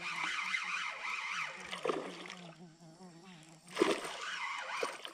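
A topwater lure slapping and splashing on the lagoon surface as it is jerked in, with one loud splash about four seconds in. Under it runs a steady, wavering drone of rainforest insects.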